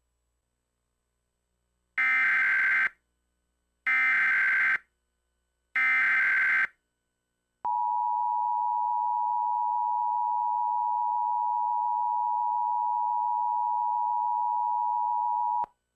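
Emergency Alert System activation. Three bursts of the SAME digital header come about two seconds apart, each a data warble about a second long. They are followed by the steady two-tone EAS attention signal, held for about eight seconds and then cut off.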